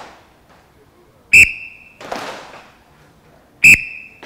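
Whistle blown in two short, sharp blasts about two and a half seconds apart, cueing the strikes. Each blast is followed under a second later by a brief clatter of many fighting sticks striking and blocking at once.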